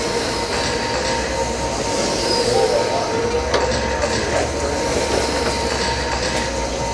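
Several 1/12-scale RC racing cars with 17.5-turn spec brushless motors lapping the track: their motors whine, rising and falling in pitch, with a few sharp clicks.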